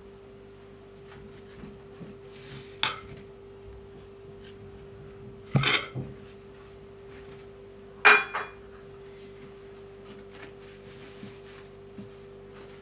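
A knife and dishes clinking in a kitchen while cut fruit is handled: a few sharp separate clinks and taps, the loudest a little before the middle and about two-thirds through. A steady faint hum runs underneath.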